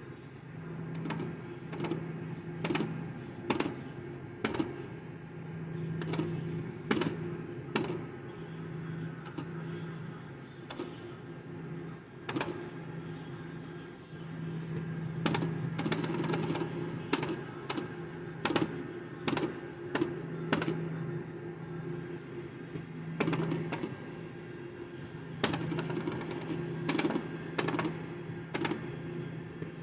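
Video slot machine being played: irregular sharp clicks and clunks from its reel-spin effects and button presses, over low humming tones of the game's sound track that come and go.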